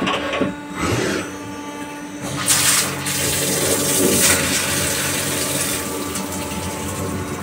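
Flood coolant gushing and splashing inside a CNC lathe's enclosure while a carbide drill cuts into the spinning workpiece, over the machine's steady hum. The splashing grows louder about two and a half seconds in.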